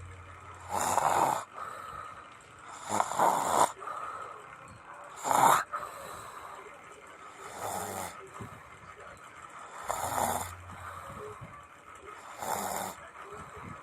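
A person snoring in a steady rhythm: six snores, one about every two and a half seconds.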